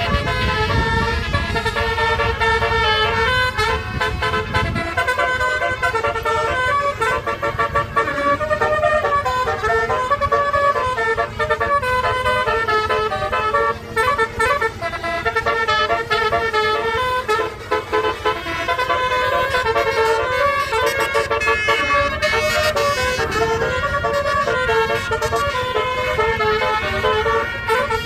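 Basuri multi-tone 'telolet' bus air horn playing a tune continuously, its tones stepping up and down in pitch. A low rumble sits under it for the first five seconds or so.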